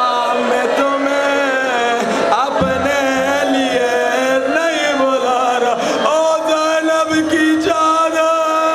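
Men's voices chanting a melodic mourning lament, with long wavering held notes and sliding pitch.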